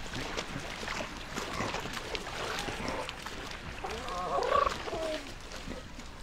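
Seal pup snuffling and nosing right against the camera, giving close clicks and rustles. About four seconds in comes a short, louder warbling animal call.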